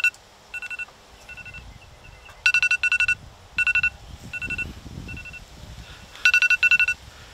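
Electronic timer alarm beeping: loud bursts of three or four quick high beeps repeating about every four seconds, with softer single beeps between the bursts.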